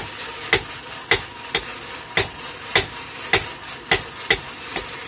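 Hand hammer striking a thin metal sheet on a small iron anvil block, steady sharp blows a little under two a second, as a sheet-metal panja is hammered into shape.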